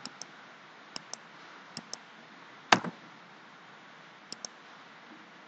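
Computer mouse clicking several times, each click a quick pair of ticks from button press and release, with one louder click about three seconds in.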